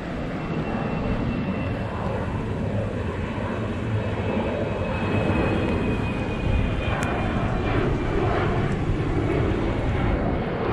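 Airplane flying overhead, its engine noise building gradually louder, with a faint high whine slowly falling in pitch.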